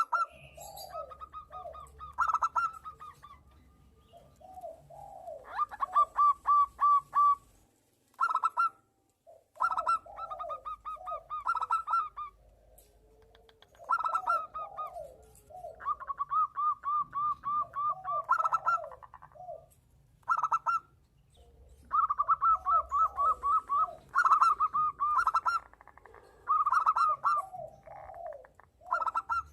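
Zebra doves (perkutut) cooing back and forth: fast runs of short, clipped higher coos overlapping lower, swooping coos, in bursts of a few seconds with short pauses between.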